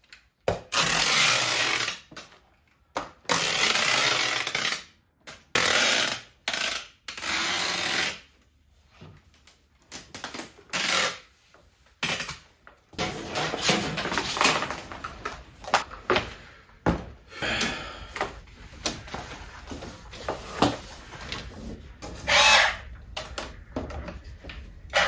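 A handheld power tool runs in short bursts of one to two seconds, five times in the first eight seconds, with quiet gaps between. After the middle come irregular knocks and rattling of parts being handled.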